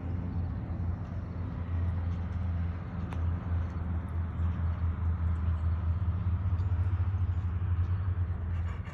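Wind buffeting the phone's microphone: a steady low rumble that flutters in loudness.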